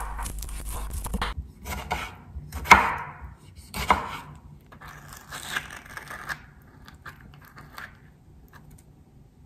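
A chef's knife chopping lettuce and tomato on a wooden cutting board: irregular knocks of the blade against the board, the loudest in the first four seconds. Then softer rustling and scraping that fades out.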